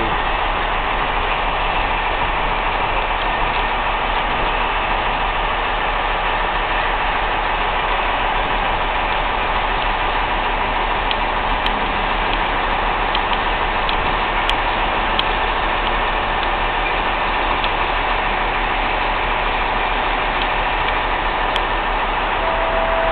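Intermodal container freight train hauled by a Class 66 diesel locomotive moving off and rolling past: a steady engine and running noise from the train, with a few sharp clicks from the wagons' wheels on the rails about halfway through.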